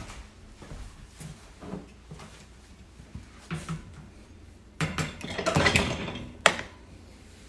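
Scattered light clicks and knocks, then a louder scraping clatter for about two seconds near the end that finishes with a sharp click.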